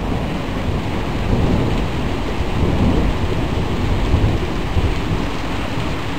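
Thunder rumbling on and on under steady rain.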